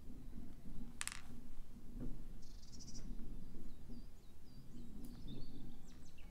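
Quiet hand-handling of beads and nylon beading thread, with one light click about a second in. Birds chirp in the background.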